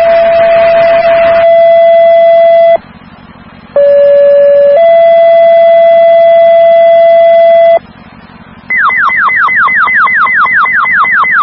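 Fire dispatch pager tone-out over a radio scanner: a short lower tone steps up to a longer, higher steady tone, and the pair repeats after a brief gap. Near the end comes a fast run of falling chirps, about five a second, alerting the fire stations before the voice call.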